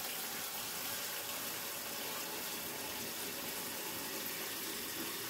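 Kitchen tap running steadily into the sink, an even rush of water.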